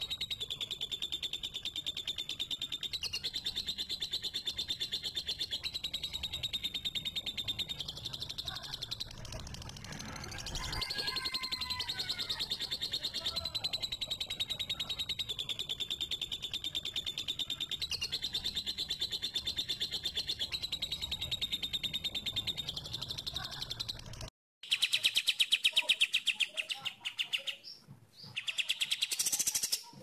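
Songbird tutor recording: one long, very fast, high-pitched trill at a steady pitch, with a few lower chirps mixed in about ten seconds in. The trill cuts out abruptly near the end, then a louder trill starts.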